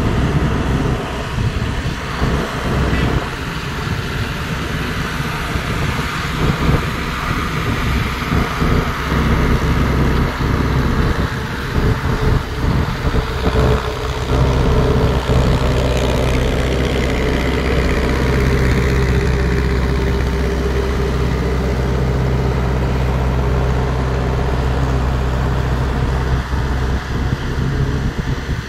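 Engine of heavy road-construction machinery running at a work site. It is uneven and clattery in the first half and settles into a steadier low hum from about halfway.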